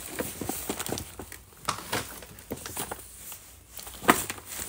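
Gift packaging and items being handled up close: scattered rustling, clicks and light taps, with one sharper knock about four seconds in.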